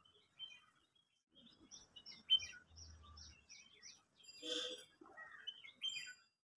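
Small birds chirping and singing: scattered high chirps, a quick run of about six short falling notes between two and four seconds in, and one louder sound at about four and a half seconds.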